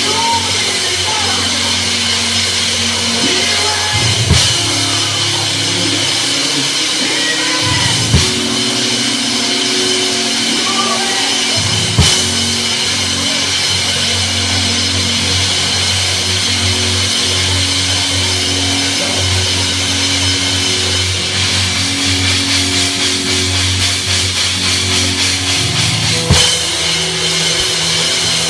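Drum kit playing along with gospel band music: sustained chords and bass underneath, with loud hit accents about four, eight and twelve seconds in and again near the end. The drumming turns quicker and busier in the last several seconds.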